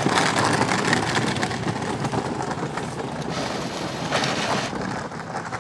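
Battery-powered toy Harley-Davidson motorcycle rolling over a packed dirt track: a steady crackling, rustling noise from the tyres and drive, with a brighter hiss between about three and four and a half seconds in.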